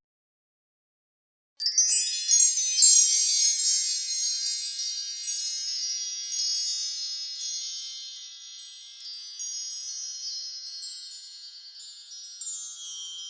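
Shimmering energy sound effect: a dense cascade of high, bell-like tinkling chimes that begins suddenly after about a second and a half of silence, then slowly fades.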